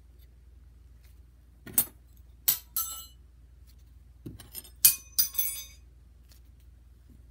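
Metal spoons clinking against each other: about six sharp clinks, each with a brief ringing tone, in two loose groups.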